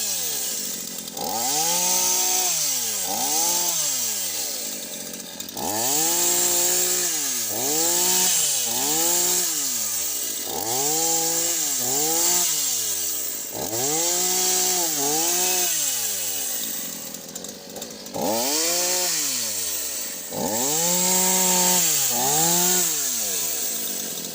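Petrol two-stroke chainsaw driving a brush-cutter attachment fitted on its bar, revving up and dropping back over and over, about once a second, with a few brief lulls.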